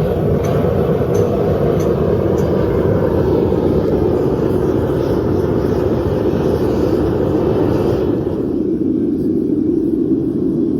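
Metal-melting furnace burner running steadily under a crucible of scrap brass, a loud even rush; its higher part thins out about eight seconds in.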